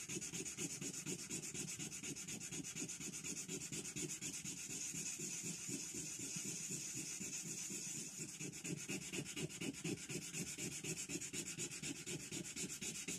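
320-grit sandpaper rubbed by hand in quick back-and-forth strokes on the steel head of a ball-peen hammer, taking paint off back to bare metal.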